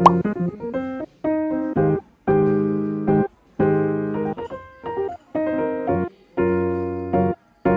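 Background piano music: a run of chords, each struck and left to fade, with short breaks between them.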